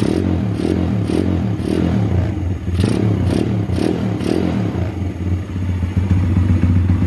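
Pit bike's single-cylinder engine running and being revved in quick throttle blips, about two a second, in two short runs, then settling back to a steady idle.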